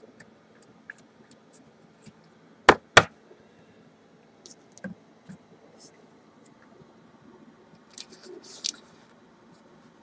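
Trading cards and a hard plastic card holder being handled: scattered light clicks and taps, two loud sharp plastic snaps close together about three seconds in, and soft rustling near the end.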